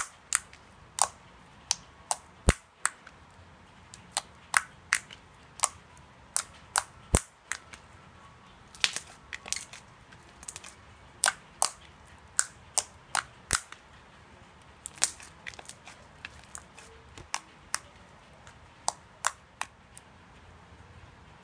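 Slime being pressed and poked, giving a string of sharp, irregular pops and clicks as air pockets burst, roughly two a second, stopping shortly before the end.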